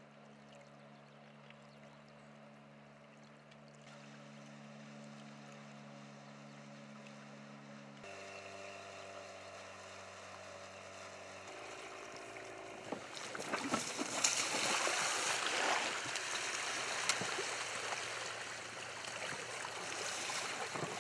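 A boat's outboard motor running as a faint, steady hum that grows louder as the boat comes closer. About two-thirds of the way in, water splashing and rushing takes over as men wade through shallow river water around their boat, which has run aground.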